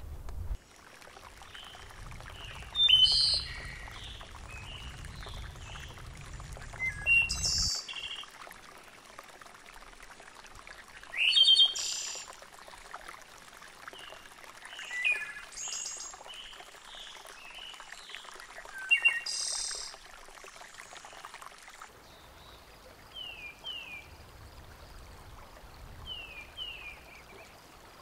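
Wild birds chirping and calling at intervals over a steady outdoor hiss. A few louder, sharp calls stand out, and near the end come pairs of quick falling notes.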